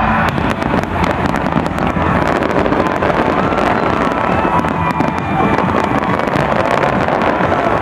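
A dense barrage of firework explosions from a large aerial display: many sharp cracks and bangs following one another with no pause.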